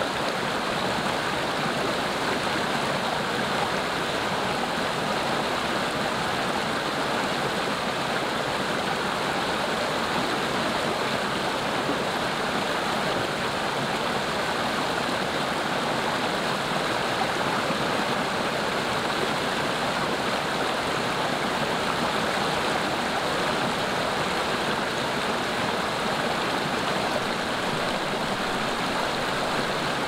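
Small shallow stream running over rocks: a steady, unchanging rush and splash of water.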